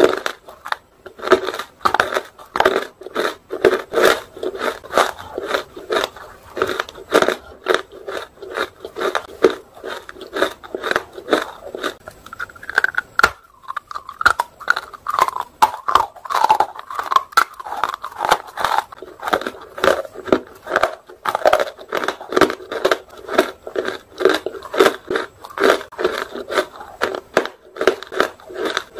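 Dry, crunchy white nakumat chunks (half and fully roasted) being bitten and chewed close to the microphone: a dense run of rapid crunches. The crunching pauses briefly near the middle as the next big chunk is bitten into, then carries on.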